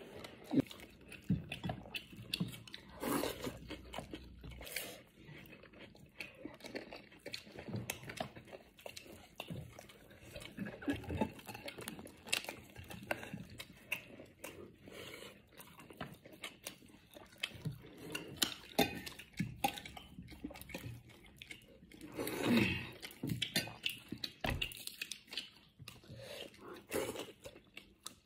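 Eating by hand at close range: chewing and mouth noises, with scattered small clicks and knocks of fingers and food against a ceramic bowl and plate.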